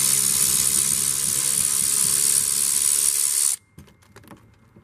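Cordless drill running steadily, backing out a fastener that holds a car's mud flap and fender liner, then cutting off suddenly about three and a half seconds in; a few faint clicks follow.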